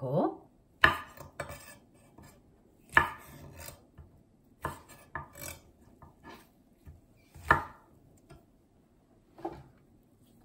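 Chef's knife knocking down onto a wooden cutting board: several sharp, irregular chops as it trims the base of a cluster of oyster mushrooms, with softer rubbing of the mushrooms being handled between them.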